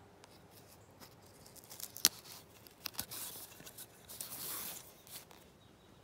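Handling noise at a leather belt: a sharp click about two seconds in, then two spells of scraping and rustling as a wooden handle is slid under the belt against clothing.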